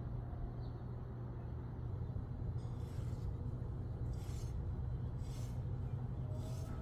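Cleaver blade scoring a raw steak on a cutting board: four short scraping strokes about a second apart in the second half, over a steady low hum.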